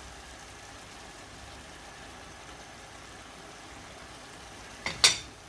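Steady low hiss of a pot of meat and potato filling cooking on the stove. About five seconds in comes a sharp clack of a utensil against the pot.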